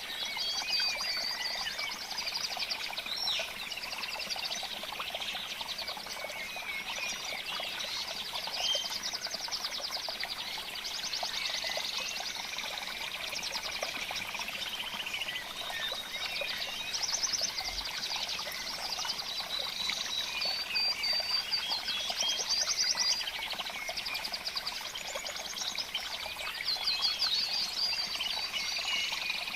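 Many small birds chirping and trilling together in a dense, continuous chorus, with fast rattling trills coming and going over the top.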